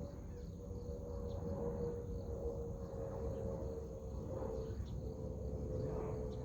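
Outdoor ambience: a steady high insect drone over a constant low rumble, with a few faint short chirps.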